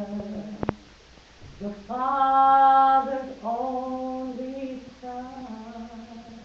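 A woman singing solo in long held notes, the loudest held from about two to three seconds in, then two more notes that fade toward the end. A single sharp click sounds just under a second in.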